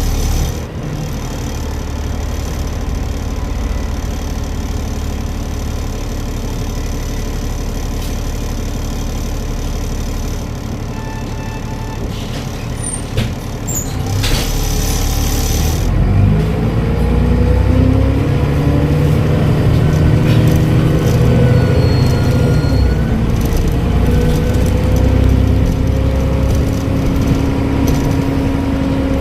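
Transbus Trident bus diesel engine idling, then a short air brake hiss about halfway through. The engine then pulls away and accelerates, its pitch climbing, with a faint high turbo whistle.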